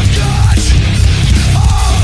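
Loud heavy rock music with a driving low beat and no break.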